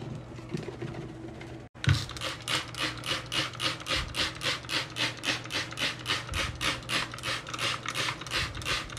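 A red scrubber scrubbing white scouring powder around a sink basin in quick, even back-and-forth strokes, about three to four a second. The scrubbing starts about two seconds in, after a short stretch of low steady noise.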